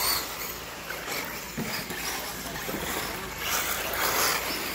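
Electric RC off-road buggies running on a dirt track: a steady hiss of tyres and motors, with louder surges near the end.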